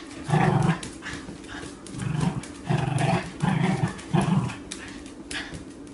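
A small dog spinning after its own tail on a tile floor, letting out five short vocal bursts, with claws ticking on the tiles throughout.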